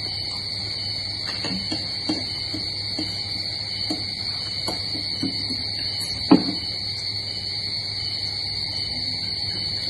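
Eating sounds: spoons clinking and scraping against plates and bowls in short scattered clicks, with one louder clink about six seconds in, over a steady high-pitched whine in the background.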